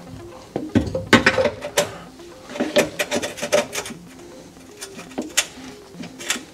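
Metal clinks and knocks of hand tools and car parts being handled, in several short clusters of sharp taps about a second apart.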